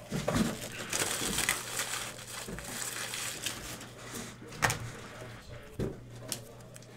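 Plastic card packaging crinkling and rustling as trading cards are handled, loudest in the first few seconds, with two sharp clicks about four and a half and six seconds in.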